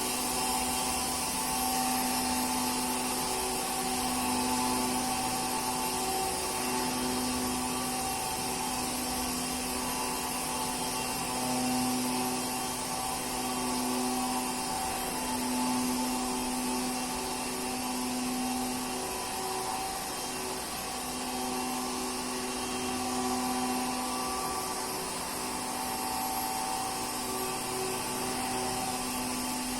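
Waterjet CNC cutting machine running: a steady high hiss with a humming tone underneath that swells and fades every second or two.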